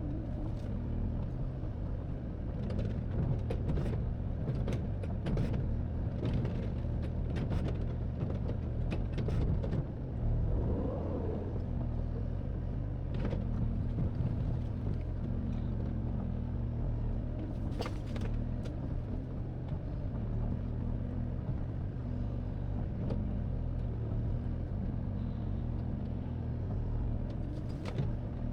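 Excavator's diesel engine running steadily at a low hum, with scattered short knocks and clicks over it.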